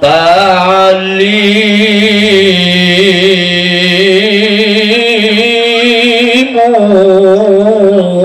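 Male voices chanting a drawn-out, melismatic Islamic devotional song, amplified through microphones and PA loudspeakers. The pitch wavers and bends as the long lines are held, and the melody shifts about six and a half seconds in.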